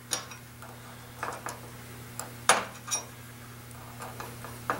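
Small metal parts and a tape measure being handled on a steel workbench: a few light, scattered clicks and clinks, the loudest about two and a half seconds in, over a steady low hum.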